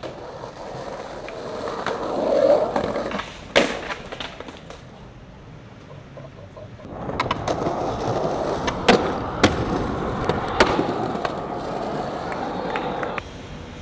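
Skateboard wheels rolling over pavement, with sharp clacks of the board popping and landing. There are two runs: the first ends in a loud crack about three and a half seconds in, and the second carries several cracks and cuts off suddenly near the end.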